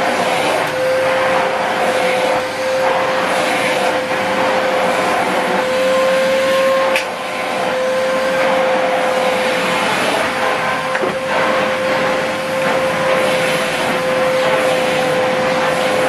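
Hoover Whirlwind bagless cylinder vacuum cleaner running on carpet: a steady motor whine over rushing suction air. The sound dips briefly twice, the second time with a short click about seven seconds in.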